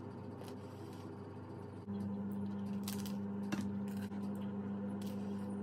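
Someone eating pizza close to the microphone: chewing and crunching crust, with a few sharp clicks and plate knocks, over a steady hum that comes on about two seconds in.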